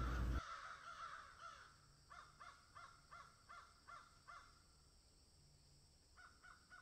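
Faint birds calling: a quick flurry of overlapping calls, then a steady run of about seven short calls, roughly three a second, and a few more near the end. A low rumble cuts off abruptly just after the start.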